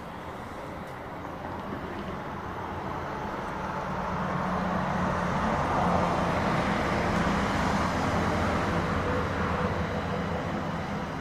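A car driving past on the street, its engine and tyre noise growing louder to a peak around the middle and easing off slightly near the end.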